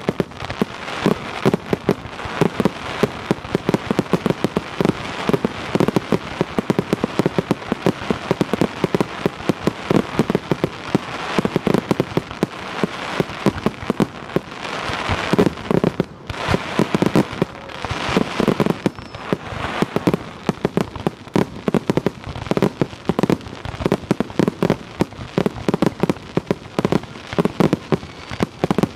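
A rapid barrage of aerial firework shells bursting: dense, overlapping bangs and pops with hardly a pause, easing briefly about halfway through.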